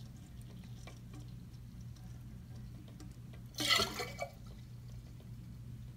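Water dripping faintly inside a toilet tank while the flush chain and lever are handled, with small clicks and one brief louder rattle or splash about two-thirds of the way through.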